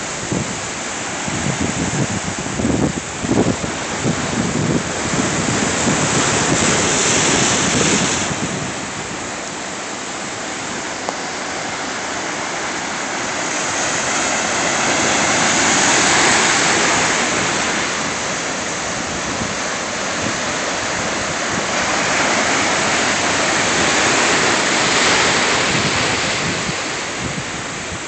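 Ocean surf breaking over black lava rocks: a continuous rushing wash of white water that swells and eases in long surges, loudest about a quarter of the way in, in the middle, and again near the end.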